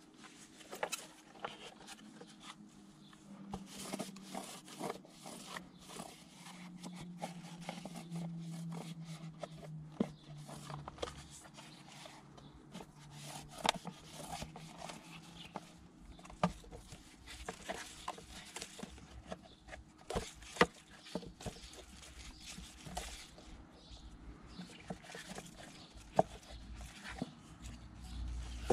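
Paper towel rubbing and scraping over a plastic car air filter housing, with irregular clicks and knocks as the plastic box and intake hose are handled. A faint low drone sits underneath for the first half.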